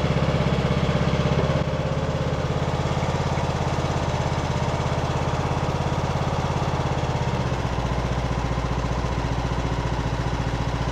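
Craftsman LT2000 riding mower's Briggs & Stratton engine running steadily on a new carburetor while its idle speed is adjusted. The engine speed steps down slightly about one and a half seconds in, and again more clearly about seven and a half seconds in.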